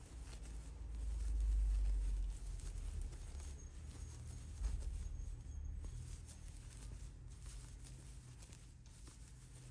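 Faint scratchy rustle of yarn being worked with a crochet hook through a run of single crochet stitches, over a low handling rumble that swells about a second in, with a soft bump about halfway through.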